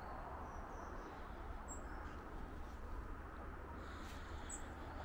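Quiet outdoor ambience: a steady low background hush with a few faint, short bird chirps.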